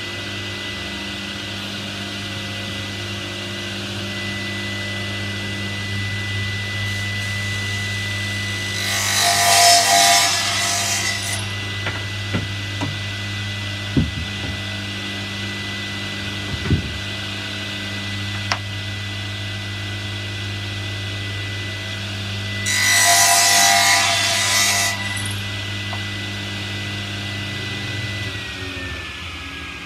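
Table saw running with a steady hum and a thin whine; twice, about a third of the way in and again about three-quarters in, the blade cuts through a thin strip of wood pushed on a crosscut sled, each cut lasting about two seconds, with a few light knocks between. Near the end the saw is switched off and the whine falls as the blade spins down.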